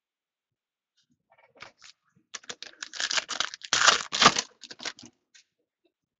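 A plastic-foil trading-card pack wrapper being torn open and crinkled by hand, in a quick irregular run of crackles that is loudest about four seconds in.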